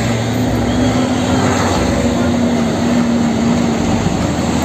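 Isuzu concrete mixer truck driving by on a road: a steady engine drone over an even broad noise, with no change in pitch.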